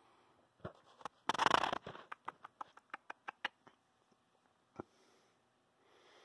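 A pet flying squirrel scrambling on a wooden blind valance: a brief scuffling rush, then a quick run of about a dozen light claw taps, with one more tap a few seconds later.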